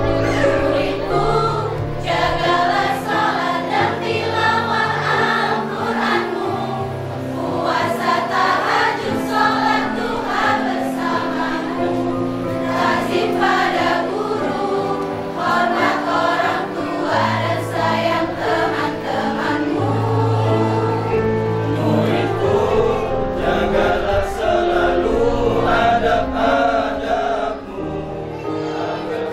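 A mixed choir of men and women sings a song together over an instrumental backing with long-held low notes.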